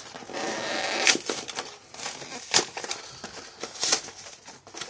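Cardboard-backed plastic blister packaging of a box of baseball card packs being torn and pried open by hand. A stretch of tearing is followed by sharp crackles and snaps about one, two and a half and four seconds in.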